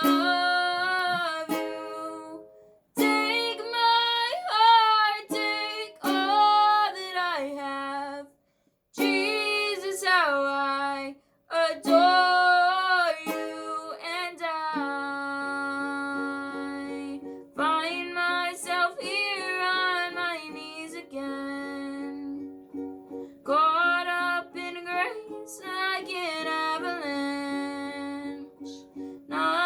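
A woman singing a slow worship song in phrases, accompanied by a plucked acoustic string instrument, with the close sound of a small room.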